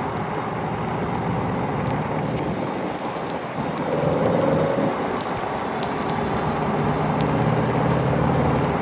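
Rain and wind noise on the microphone while riding a motorbike in the rain, with scattered sharp ticks of raindrops and the bike's low, steady engine hum underneath, stronger in the second half.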